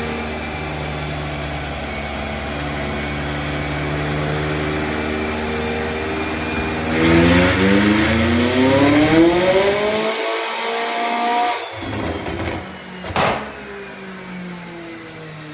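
McLaren 600LT's twin-turbo V8 running steadily, then revving up hard for about three seconds before the throttle cuts off abruptly. A couple of sharp exhaust pops follow.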